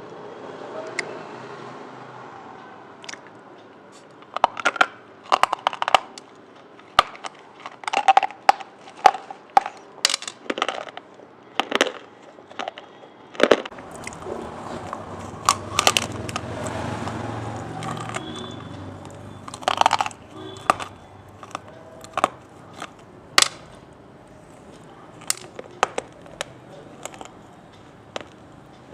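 Close-miked crunchy eating: irregular sharp crunches and crackles of someone biting and chewing crunchy food, some in quick clusters, over a low steady hum.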